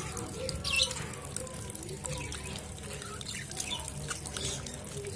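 Tap water pouring and splashing steadily onto budgerigars in a wire cage as they are bathed.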